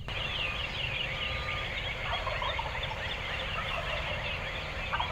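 Wild turkey gobbling, a rapid rattling call about two seconds in, with another gobble starting right at the end, over a dawn chorus of songbirds giving quick repeated chirping notes.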